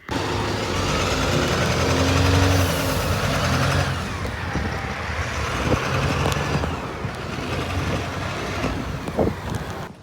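Motor vehicle engine and road noise, a steady low hum under a dense rush, swelling and easing a little, with faint rising and falling tones above it.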